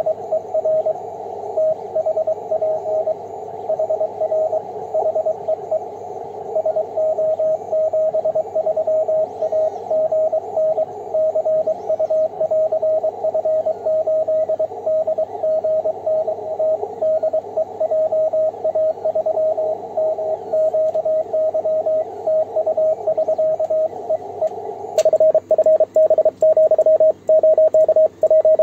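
Morse code on the 10-metre band from a Yaesu transceiver: one steady mid-pitched tone keyed on and off over narrow-filtered receiver hiss. About 25 seconds in, the hiss cuts out and a louder, faster-keyed sidetone starts, sent on a single-lever paddle.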